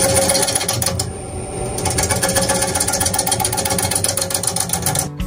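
Turning tool cutting an oak crotch blank spinning on a wood lathe at about 450 rpm, a loud rhythmic cutting noise. The cut eases for under a second about a second in, then carries on.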